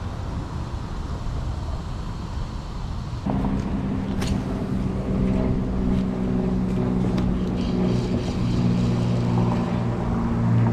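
Low rumbling outdoor noise, then about a third of the way in a steady low-pitched motor hum starts abruptly and keeps running, with a single sharp click soon after it begins.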